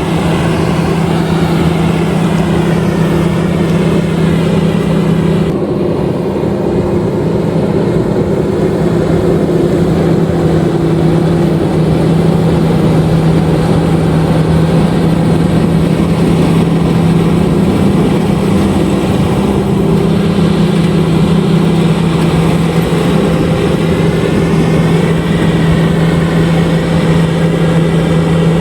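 LOVOL RG130EVO combine harvester running steadily with a strong, even engine hum and a noisy machinery spread above it. The higher sound drops off abruptly about six seconds in.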